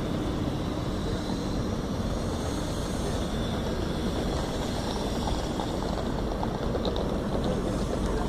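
Diesel passenger trains running at the station platform, a steady engine rumble throughout.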